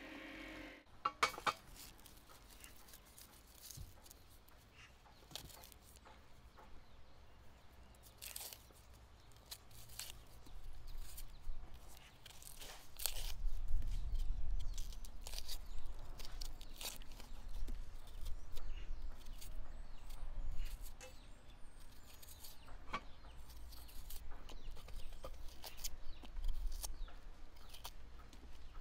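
A small knife peeling onions by hand: scattered sharp clicks and crackles as the blade cuts and tears the dry, papery onion skins. A low rumble joins from about halfway through.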